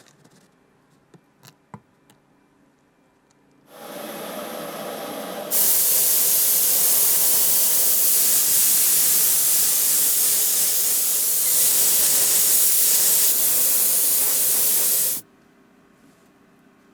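A steady spraying hiss from a nozzle: it starts softer about four seconds in, turns much louder a second and a half later, and cuts off suddenly about eleven seconds after starting. A few faint clicks come before it.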